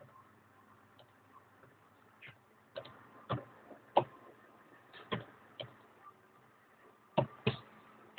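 Computer keyboard keys pressed one at a time: about a dozen sharp keystroke clicks at a slow, uneven pace, some in quick pairs, as a line of text is typed.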